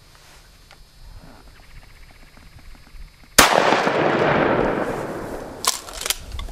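A shotgun shot about halfway through, its report rolling away over about two seconds, followed by two sharper cracks near the end.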